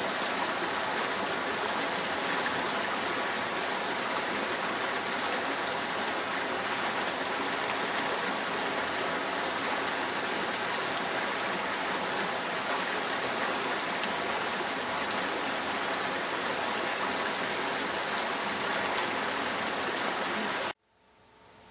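River water flowing over a low weir: a steady, loud rush of splashing water that cuts off suddenly near the end.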